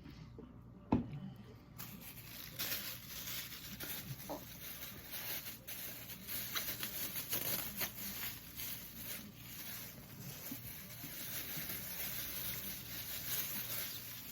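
A sharp click, then soda fizzing: a steady crackling hiss of tiny bubble pops that starts about two seconds in and fades near the end.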